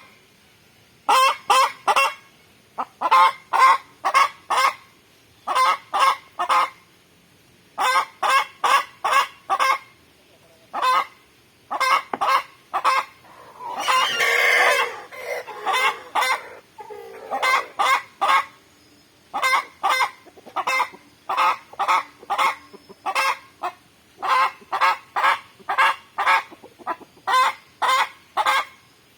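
Aseel chickens clucking in quick clusters of two to four sharp notes, over and over, with one longer drawn-out call about halfway through.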